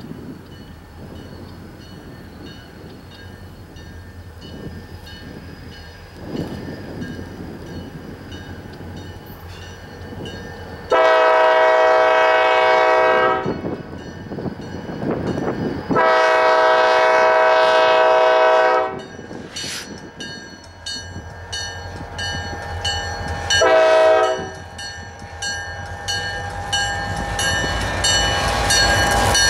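An EMD SD40-2 diesel locomotive approaches with a low engine rumble. Its horn sounds a chord of several tones at once: two long blasts a few seconds apart, then a short one about 24 seconds in. This long-long-short is the opening of the grade-crossing signal.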